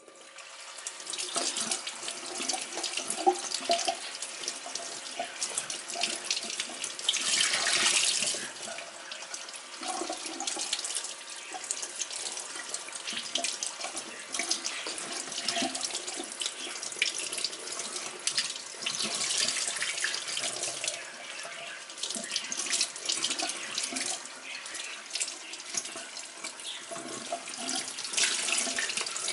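Water running and splashing steadily, as from a tap into a sink, starting just after the beginning. It swells louder about seven seconds in and again near the end.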